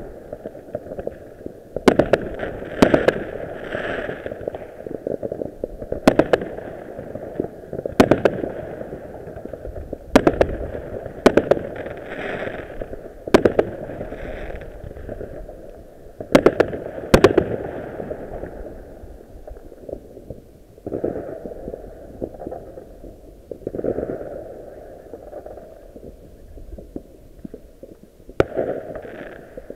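Fireworks going off: about a dozen sharp bangs of bursting shells at uneven intervals, with steady background noise between them. A quieter stretch of about ten seconds comes before a last bang near the end.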